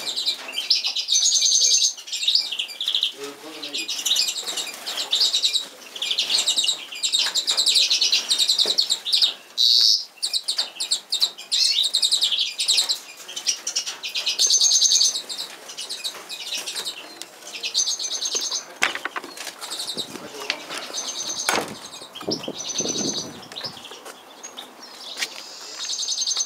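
Magpies chattering: harsh, buzzy calls repeated again and again, each burst lasting about a second, with a few low thumps near the end.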